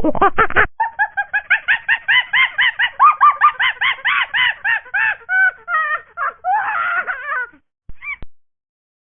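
Domestic poultry calling: a rapid run of short, arched calls, several a second, that trails off, with one last call near the end. Just before it, a louder burst of honking cuts off abruptly.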